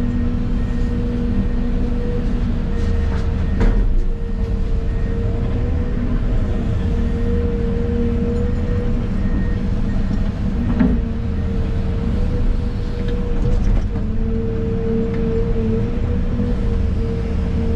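Excavator engine and hydraulics running under load, heard from inside the cab: a steady low rumble with a steady whine, and a few knocks along the way.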